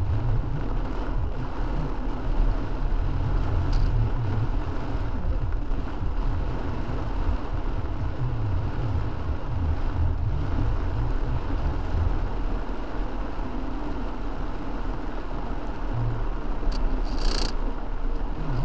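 A car driving on a wet road in heavy rain, heard from inside the cabin: a steady low rumble of engine and tyres with an even hiss over it, and a few brief faint clicks, the clearest near the end.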